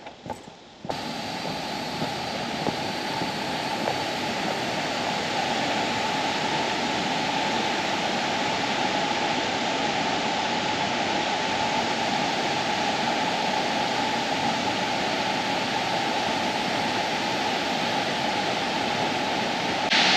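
Waterfall rushing steadily. It starts abruptly about a second in.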